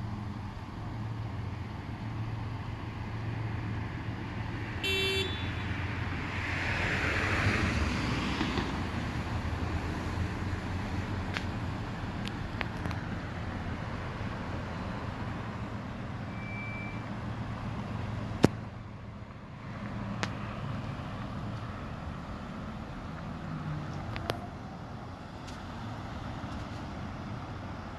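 Road traffic on a city street: a car passes about six to nine seconds in over a steady low hum. A brief high beep comes near five seconds, and two sharp clicks come later.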